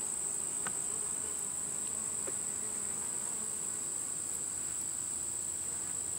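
Insects trilling steadily at a high pitch, one even, unbroken sound with no pauses.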